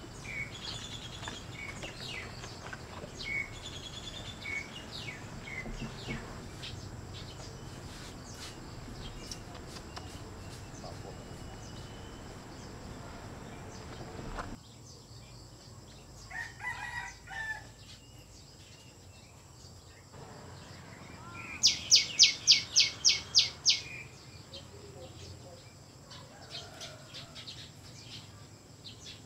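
Birds calling: scattered short chirps, then, in the second half, a rapid series of about nine loud sharp high calls at roughly four a second, lasting about two seconds. A steady background noise drops off abruptly about halfway through.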